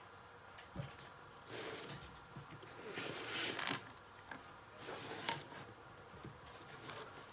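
Spiral-bound paper sketchbook being pulled and shifted across a wooden tabletop: paper rustling and scraping in three short swells, with a few light knocks.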